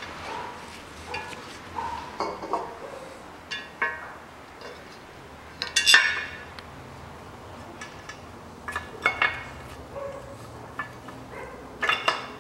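Irregular metallic clinks and knocks of engine parts and hand tools being handled while a pulley is fitted to a water pump, the loudest cluster about six seconds in and another near the end.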